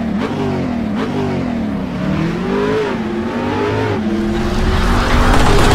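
Car engine revving up and down several times, its pitch rising and falling, then holding steadier while a rushing noise builds near the end.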